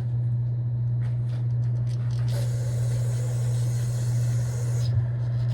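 An aerosol can of brake parts cleaner sprays a hydraulic roller lifter in one hiss of about two and a half seconds, starting about two seconds in. A steady low hum runs underneath.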